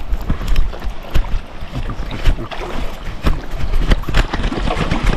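River water sloshing and splashing around a wading angler and his landing net, with irregular knocks and a low rumble of wind and handling noise on the microphone.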